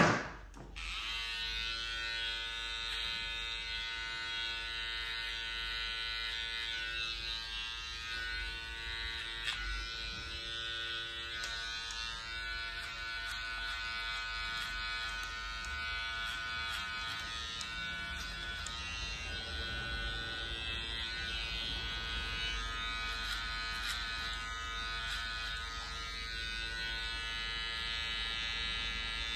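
Small electric detailing clipper running with a steady buzzing hum while trimming hair around the ear and sideburn. A sharp knock sounds at the very start, just before the hum comes in.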